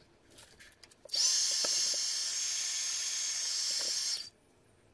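Airbrush spraying, a steady hiss of compressed air that starts about a second in and cuts off after about three seconds.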